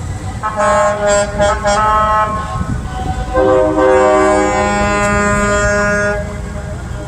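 A vehicle air horn sounding a chord of several tones: a quick run of short blasts, then one long blast of about three seconds.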